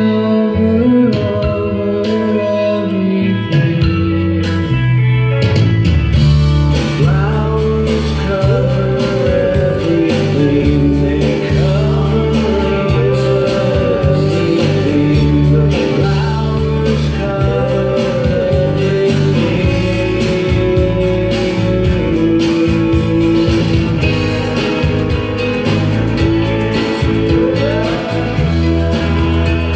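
A song with a singing voice and guitar, played back from a cassette tape on a Pioneer CT-W616DR deck with its digital hiss-reduction processing.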